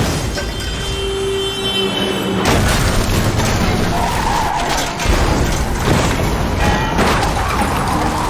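Layered vehicle-chase sound effects: car engines and skidding tyres mixed with crashing. The mix gets louder and denser about two and a half seconds in.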